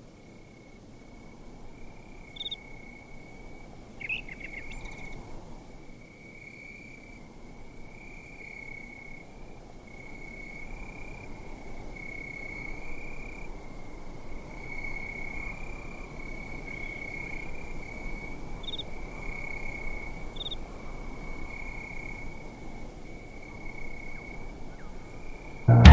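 Crickets chirping in a steady, pulsing trill as night-time ambience, with a few short higher chirps here and there.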